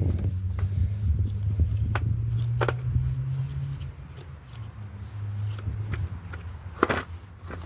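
Scattered clicks and scrapes of a screwdriver and hands on an electric string trimmer's plastic housing as a stubborn screw is worked loose, over a steady low hum.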